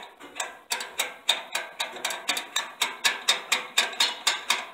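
Socket ratchet clicking in quick, even strokes, about four clicks a second from about a second in, as a mounting bolt is run in by hand.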